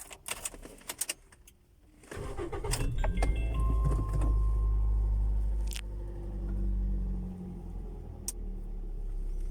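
Ignition keys jangle and click, then the four-cylinder engine of a second-generation Toyota Vios starts about two seconds in and runs at a fast idle. The idle settles lower about seven seconds in. It is running on freshly replaced ignition coils, fitted to cure a dropping, rough idle.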